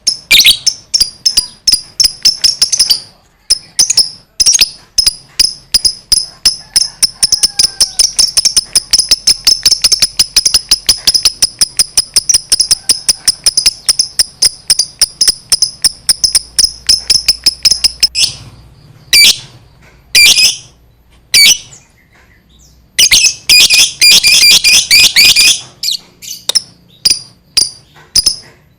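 Lovebird singing a long 'ngekek': a shrill, rapid chattering run of sharp repeated notes that lasts about eighteen seconds. After a brief pause come a few short bursts and another dense run near the end.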